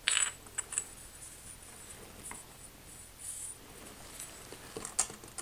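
Light clicks and scrapes of ceramic tile pieces being handled and pressed into thinset mortar: a few scattered clicks with a soft scrape in the middle.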